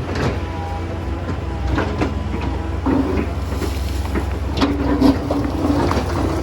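Excavator's diesel engine running steadily with a whine that comes and goes, while stones knock and clatter against the steel bucket several times as stony soil is sifted.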